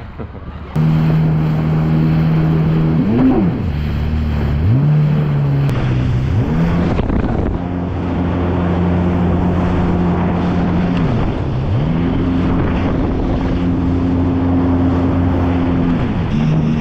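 Yamaha 1800 four-stroke jet ski engine running at speed, its pitch dipping and rising again several times as the throttle is eased and reopened. Water spray and wind rush past the hull.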